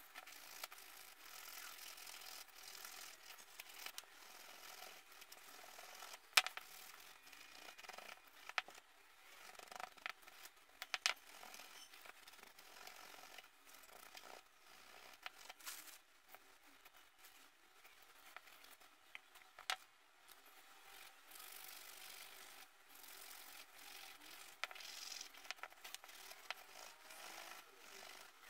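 Small ornate metal fittings being rubbed and scrubbed by hand on a cloth: a faint, uneven rubbing with now and then a sharp click as a metal piece knocks or is set down.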